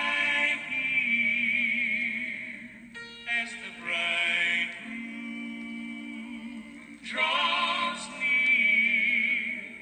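Southern gospel song: singers hold long, wavering vibrato notes over a steady sustained accompaniment, with a short break in the voices about three seconds in.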